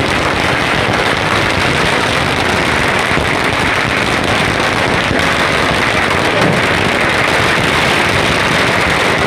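A string of firecrackers going off in a rapid, continuous crackle.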